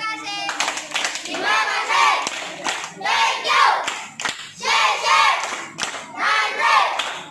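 A large group of children and adults doing a rhythmic clap-and-chant cheer in unison: shouted phrases come about every second and a half, with hand claps between them.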